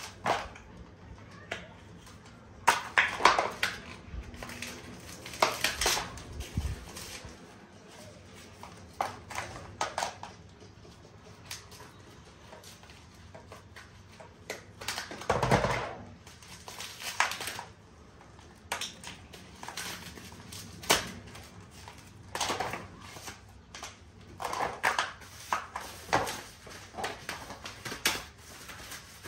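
Cardboard packaging being pulled and torn off a newly unboxed bicycle, in irregular bursts of crinkling and rustling with quiet gaps between, the loudest about fifteen seconds in.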